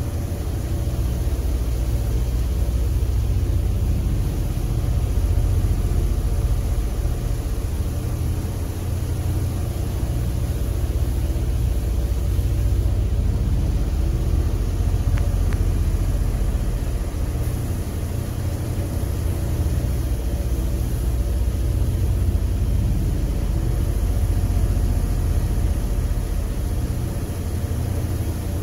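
Steady low rumble of paint-booth ventilation running, with a faint even hiss above it, swelling and easing slightly every few seconds while the chassis is spray-painted.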